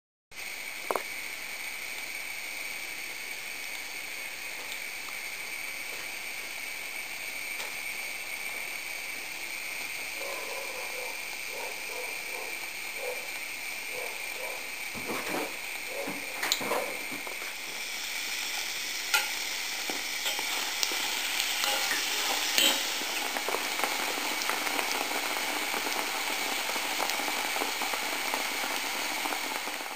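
Rose doughnuts deep-frying in hot oil and lard in a steel pot: a steady sizzle with scattered sharp pops, growing a little louder past the halfway mark. A few light knocks come in the middle.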